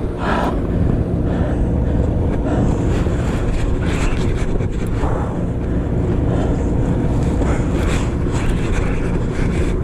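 Sportfishing boat's engine running steadily on deck, a continuous low hum, with wind buffeting the microphone.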